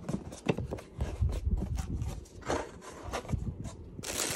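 Cardboard packaging of a camera box rubbing and scraping as the flaps are handled. Near the end, a plastic bag crinkles sharply as the wrapped camera inside is grabbed.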